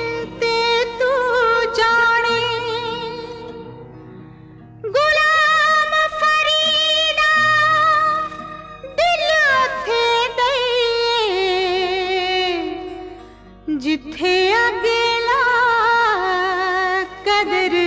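A song with sustained, ornamented vocal phrases over a soft backing, the voice gliding and bending between held notes. Phrases begin about five seconds in, again near nine seconds and again near fourteen, with the backing fading almost away between them.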